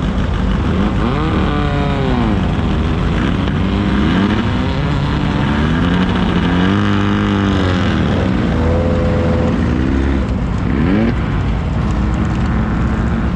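Race vehicles' engines revving and running past over a steady low rumble, their pitch sweeping up and down about four times.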